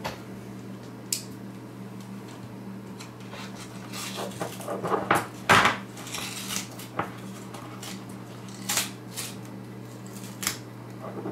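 Clicks, taps and scrapes of a small metal-framed speaker driver being handled and worked by hand on a bench, with the loudest cluster about halfway through, over a steady low hum. The driver is blown, its voice coil burnt out.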